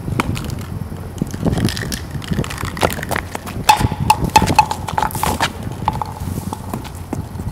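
Quick footsteps and scuffing knocks on concrete as a man runs up to a wall and starts climbing its window ledges, with a row of short high squeaks about halfway through.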